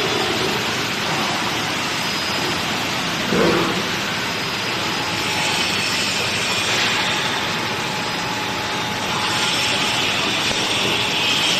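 Ritec GS400 CNC band sawing machine running with a steady mechanical whir and hiss. There is a short thump about three and a half seconds in, and the hiss grows brighter for a stretch after five seconds and again near the end.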